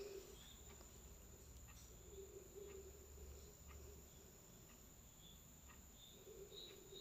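Near silence: room tone with only faint, scattered short chirps and soft ticks.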